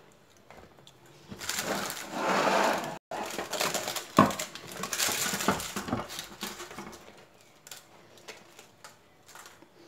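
Rustling of baking parchment and crusty flatbread pieces being handled and moved onto a wooden serving board, with a single sharp knock about four seconds in and small clicks as the pieces are set down.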